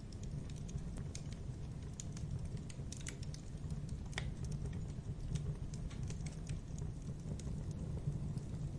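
Wood logs burning in a fireplace: a steady low rumble of the fire with irregular sharp crackles and pops throughout.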